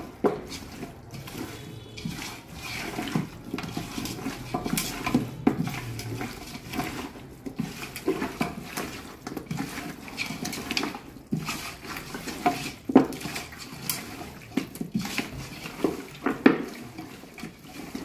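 A hand squelching and sloshing wet marinated chicken pieces around an aluminium pot, with irregular knocks and clicks against the pot's metal side.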